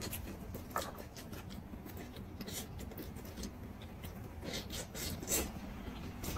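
Eating a roast chicken by hand: the meat pulled apart and chewed off the bone, heard as scattered soft tearing, crackling and mouth clicks.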